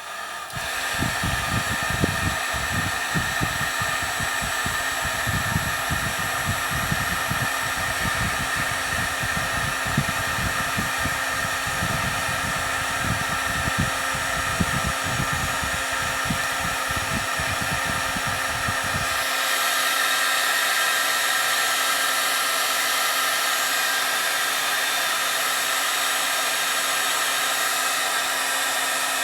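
Electric heat gun switched on and running steadily, a loud blowing hiss with a fan whine, used to melt solder-seal heat-shrink wire connectors. A low fluttering rumble under it stops about two-thirds of the way through, and the hiss turns brighter.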